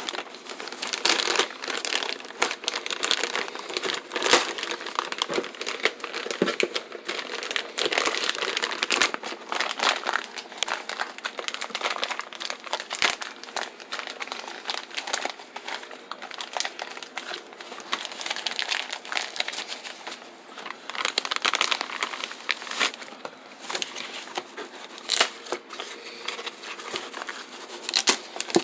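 Plastic packaging crinkling and rustling as parts are unwrapped, a continuous run of irregular crackles.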